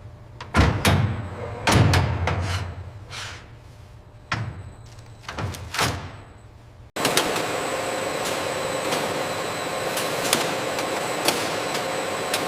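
A string of separate knocks and clunks, some with a short ring, over about seven seconds, then an abrupt change to steady machinery running with a constant hum and light ticking.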